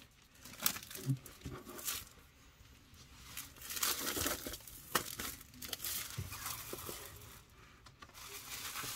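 Clear plastic LP outer sleeve crinkling and rustling in uneven bursts, with several sharp crackles, as the record jacket is handled and slid out of it.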